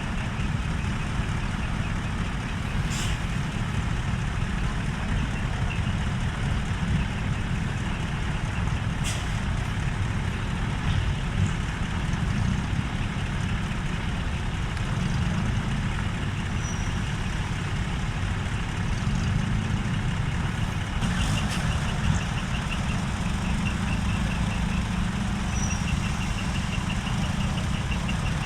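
Large diesel truck engine running steadily at low revs, with a few brief sharp sounds about three, nine and twenty-one seconds in.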